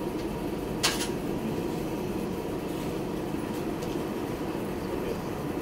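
Steady city street traffic hum, with one short sharp click about a second in.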